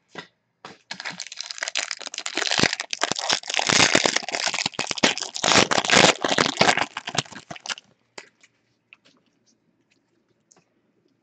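Plastic wrapper of a football trading card pack crinkling and tearing as it is opened by hand: a dense crackle for about seven seconds, stopping to a few faint ticks near the end.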